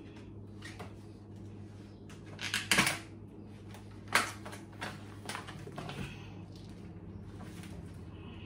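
Kitchen handling noises: a plastic bag crinkling and scattered knocks and clicks as a raw salmon fillet is moved about on the counter, the loudest a rustle about two and a half seconds in and a sharp knock a little after four seconds. A low steady hum runs underneath.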